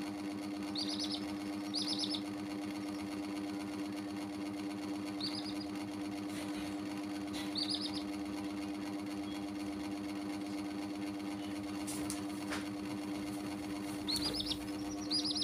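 Baby chicks peeping, short high cheeps in ones and twos, about six in all, over a steady low mechanical hum.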